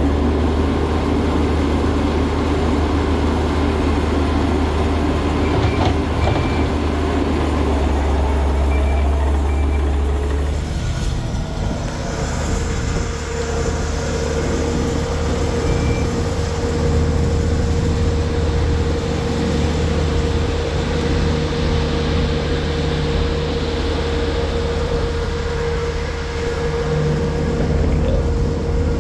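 Concrete mixer truck's diesel engine running steadily under load, its note shifting about ten seconds in and then holding a steady hum, with a few short high beeps.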